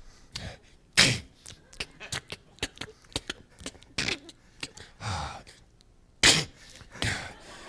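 Vocal sound effects made by mouth into a microphone: a string of clicks and pops with short noisy bursts and a few falling swoops, the loudest bursts about a second in and again past six seconds.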